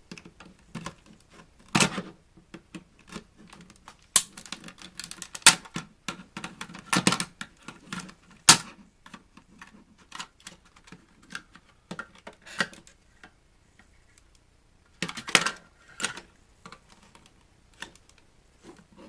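Plastic housing of a TV antenna unit being handled and pried at by hand, giving irregular sharp plastic clicks and knocks, with a few louder clatters and a quieter stretch about two-thirds of the way through.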